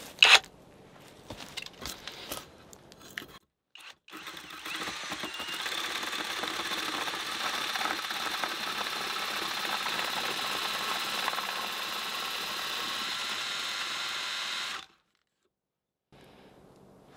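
A drill drives a round tenon cutter onto the end of a log, shaving the wood into a round tenon. The motor whines steadily under load for about ten seconds, starting about four seconds in and stopping suddenly. Before it come a few knocks and clicks, one of them loud and sharp just after the start.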